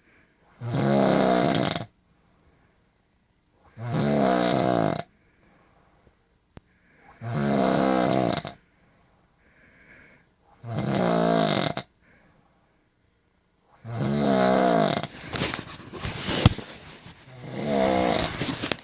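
A woman snoring in her sleep: six loud snores, each about a second long, come roughly every three seconds, with faint breaths between. After the fifth snore there is a short patch of clicks and rustling.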